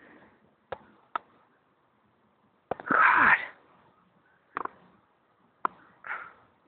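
A person's breathy exclamation about three seconds in, and a short sniff-like breath near the end, with a few sharp clicks scattered between them.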